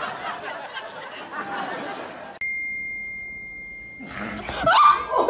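Studio audience laughing, then a steady single-tone censor bleep about a second and a half long, then a brief loud cry with a sliding pitch.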